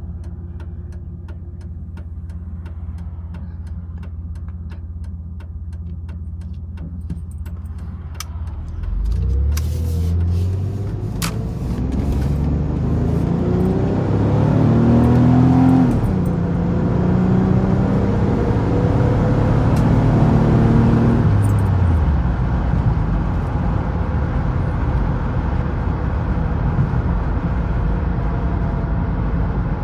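Minivan V6 engine heard from inside the closed cabin. It idles steadily for about eight seconds, then pulls away: its pitch climbs, drops once about halfway through as the automatic transmission shifts up, and climbs again. Near the end it settles into a steady cruising hum with road noise.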